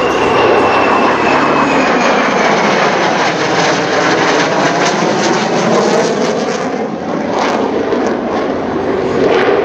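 Two Boeing EA-18G Growlers flying past in formation, their twin General Electric F414 turbofan engines making loud, steady jet noise. A high whine falls in pitch over the first couple of seconds as the jets pass.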